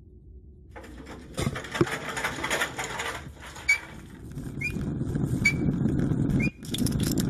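Cartoon sound effect of a railway handcar rolling on the rails: a clattering rumble that grows louder, with short squeaks about once a second.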